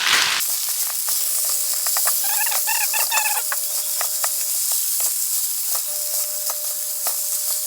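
Chicken and vegetables stir-frying in lemongrass sauce, sizzling with a steady hiss, with light clicks from the stirring utensil. About two to three seconds in comes a brief run of short, squeaky chirps.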